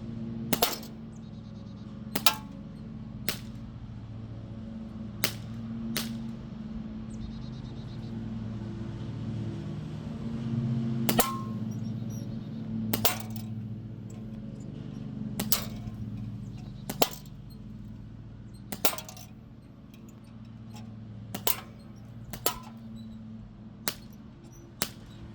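Crosman Z77 CO2 BB gun being fired shot after shot: about fourteen sharp cracks at irregular intervals of one to three seconds, over a steady low hum.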